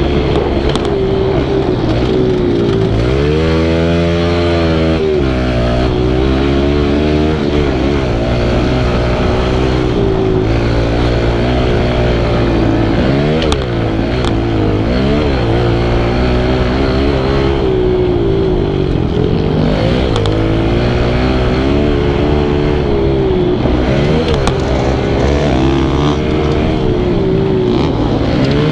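Kawasaki KLX110 pit bike's small single-cylinder four-stroke engine heard on board while being ridden hard over a dirt track, its revs rising and falling over and over, with a long climb about three to five seconds in.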